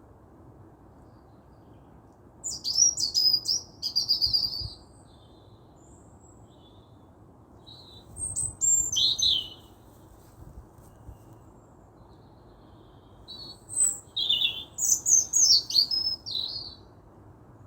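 Songbird song in three bursts of quick high chirps and down-slurred notes, a few seconds apart, over a faint steady background hiss.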